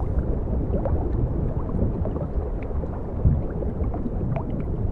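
Underwater ambience: a low, steady rumble with scattered faint clicks and crackles.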